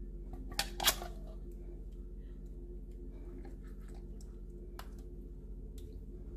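Two sharp knocks just before a second in as a metal can of condensed soup is emptied over a glass baking dish, followed by faint soft scraping and squishing as the thick soup is spread over the meat with a utensil, over a steady low hum.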